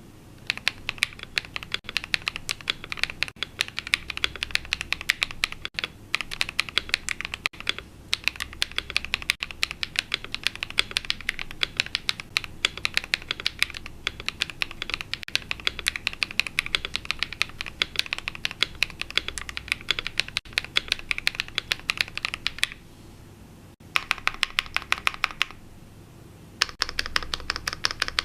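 Typing on a Monsgeek M1 mechanical keyboard fitted with lubed KTT Kang White v3 linear switches, a POM plate and full foam: a fast run of key strokes that stops about 23 seconds in, then two short bursts after brief pauses.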